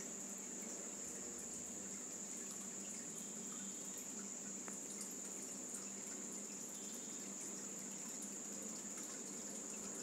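Steady flowing river water with a continuous high-pitched insect trill over it.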